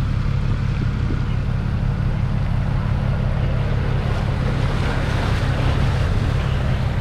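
Steady engine drone of a vehicle wading through a flooded road, with a wash of moving water over it that swells about four to six seconds in as a pickup truck drives past through the water.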